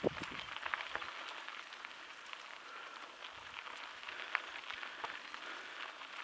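Mountain bike rolling along a dirt and gravel trail: a steady crunching hiss from the tyres with many small clicks and rattles, and a sharper knock at the start.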